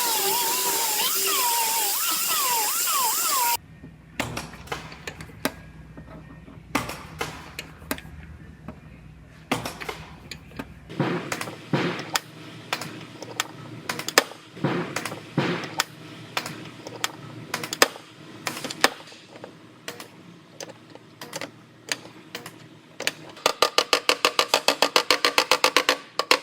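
A power tool runs with a wavering whine for about three and a half seconds, then cuts off. Scattered sharp knocks and clicks of hand work on metal follow. Near the end comes a fast, even run of loud clicks.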